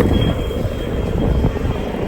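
Skateboard wheels rolling on pavement: a steady low rumble.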